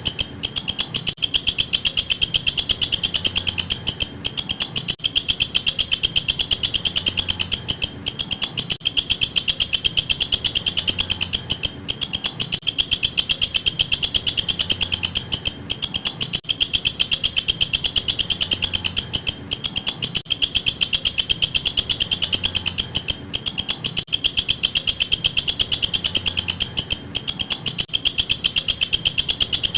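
Walang kecek katydid (bush cricket) stridulating: a loud, high-pitched stream of very rapid, even pulses, broken by short gaps every second or few seconds.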